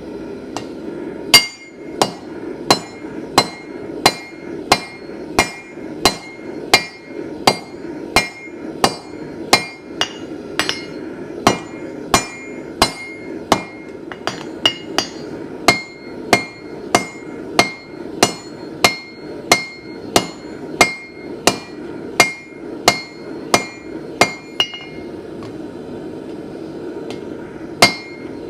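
Four-pound hand hammer striking hot mild steel over the corner of an anvil, drawing down the stock. The blows come evenly, about one and a half a second, each with a bright metallic ring. They stop for a few seconds near the end, then start again.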